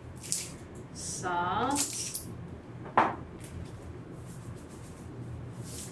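Seasonings shaken out of spice jars into a blender jar: short hissy rattles of powder and grains, with a single sharp click about three seconds in.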